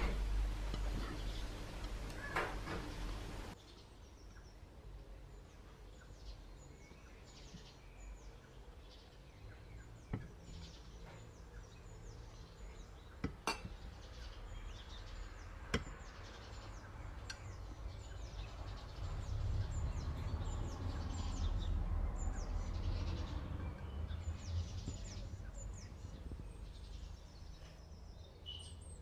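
Faint birdsong of short, quick falling chirps repeating in the background, over a low steady hum, with a few light knocks from dishes being handled.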